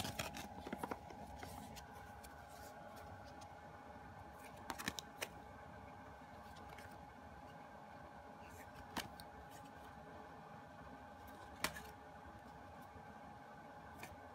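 Printed album pages being handled and turned by hand: faint paper rustling, with a few short sharp snaps and clicks, a cluster at the start, two about five seconds in, and single ones near nine and twelve seconds.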